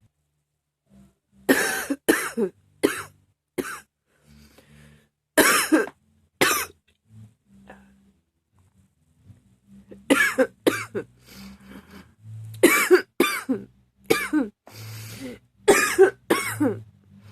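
A woman coughing in repeated fits: a quick run of four coughs about two seconds in, two more a few seconds later, then a longer run of a dozen or so coughs through the second half.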